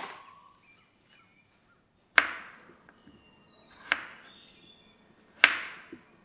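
Kitchen knife chopping a peeled potato on a wooden cutting board: three sharp chops, roughly a second and a half apart.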